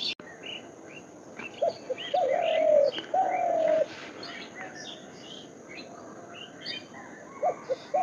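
Birds calling: a low call phrase of two short notes followed by two longer, slightly falling held notes a couple of seconds in, over scattered higher chirps from other birds.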